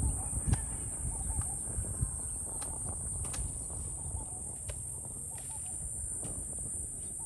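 Outdoor rural ambience: a steady high-pitched insect drone, with scattered sharp clicks and snaps and a low background rumble.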